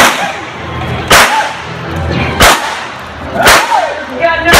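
A series of four or five loud gunshots, blanks fired in a staged Wild West shootout, coming roughly once a second, each with a short echo.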